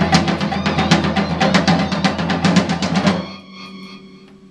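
A live ensemble of piano, hammered dulcimer, vibraphone, guitar and percussion plays a dense passage of rapid, drum-heavy strikes. It stops abruptly about three seconds in, leaving a few held notes ringing out and fading.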